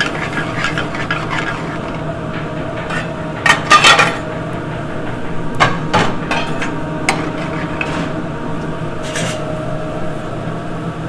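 Metal sauté pan knocking and scraping on the grate of a commercial gas range as it is swirled to melt butter into a white-wine pan sauce, with a loud cluster of clanks about four seconds in and a few single knocks after. A steady background roar from the busy kitchen runs underneath.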